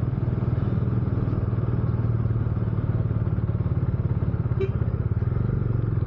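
Motorcycle engine running steadily at low revs, with a quick, even pulsing beat.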